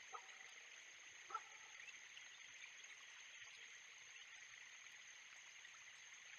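Faint outdoor background from a nest cam: a steady high hiss with a thin steady whine above it, broken by two short faint calls, one right at the start and one about a second and a half in.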